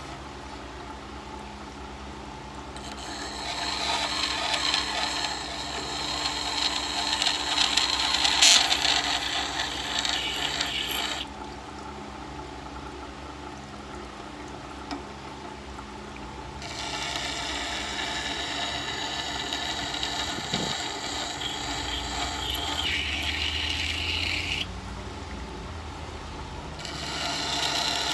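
A WEN wet grinder's water-cooled stone grinds a scissor blade held in a scissor jig, a scraping hiss over the motor's steady hum. The grinding comes in three stretches, starting about three seconds in, again around seventeen seconds and near the end. Between them only the motor hum is heard while the blade is lifted off the stone.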